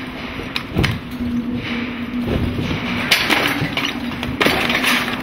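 Wood-frame house with brick veneer being shaken on a shake table during a simulated earthquake. A steady hum runs under rattling, with sharp cracks and bangs as the structure is shaken: the loudest come about three seconds in and again around four and a half seconds.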